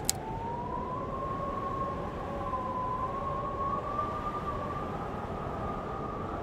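Sound-design drone for a title sequence: a sustained whistling tone that rises slightly a moment in, then drifts slowly up and down, over a low rumbling noise. It opens with a single typewriter-like click.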